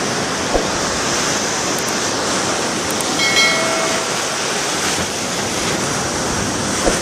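Steady wash of ocean surf on a beach, with a short high-pitched tone about three seconds in.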